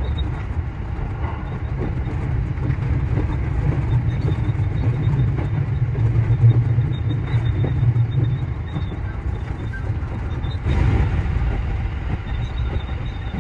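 JR Central 315 series electric train running between stations: a steady low rumble of wheels on rail, with a faint high steady tone and a brief louder swell about eleven seconds in.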